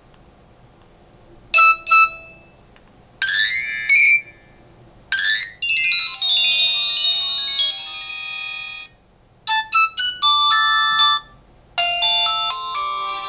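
Nokia 110 4G phone ringtones and alert tones: two short beeps, then three quick rising sweeps, then several bright electronic melody phrases with short pauses between them.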